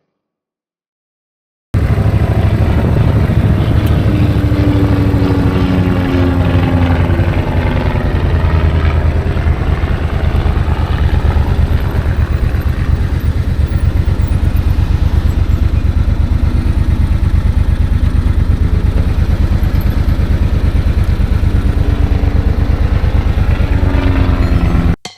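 Suzuki VL1500 Intruder's V-twin engine running steadily with a low, rapid pulse. It cuts in suddenly about two seconds in and stops just before the end.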